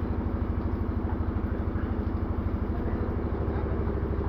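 Motorcycle engine idling steadily with an even, rapid pulse.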